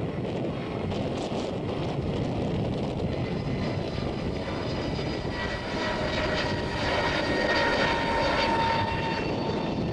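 Twin-engine jet airliner passing low overhead: a steady jet-engine rush, joined about four seconds in by a whine of several steady tones that is loudest near eight seconds.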